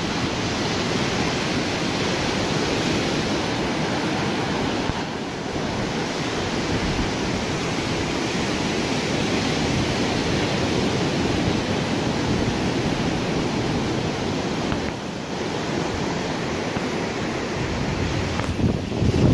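Ocean surf breaking and washing over the shore, a steady rush of waves. Near the end a gust of wind rumbles on the microphone.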